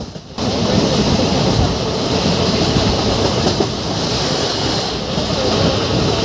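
Passenger express train running at speed, heard from an open coach doorway: wheels on rail and rushing air in a loud steady din that jumps suddenly louder less than half a second in.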